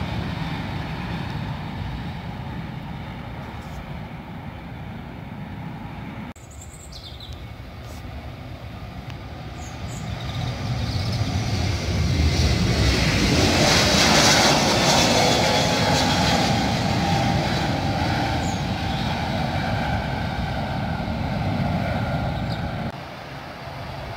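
Jet airliner engines at takeoff power. First a Boeing 787 climbing away, its roar fading. Then, after a cut about a quarter of the way in, a jetBlue Airbus A321 lifts off, its roar building to the loudest point around the middle and easing off again.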